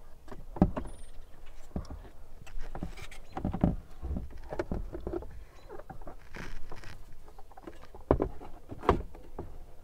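Irregular clicks, taps and knocks of hard plastic as an instrument cluster is handled and fitted into a pickup's dash, with a few sharper knocks about half a second in, around three and a half seconds, and twice near the end.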